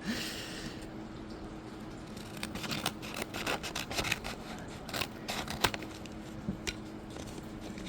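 Scissors cutting into a heavily taped package: a brief scraping hiss, then a series of short, sharp snips and clicks.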